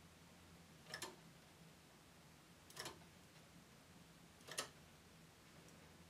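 Three faint clicks about two seconds apart: a latch hook catching stitches on the metal needles of a knitting machine, one stitch at a time, as the stitches are bound off by hand.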